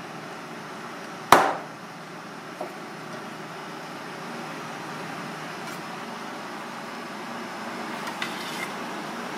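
A kitchen knife chopping through a sea snake's body onto a cutting board: one sharp chop about a second in, then a lighter knock, over steady background noise.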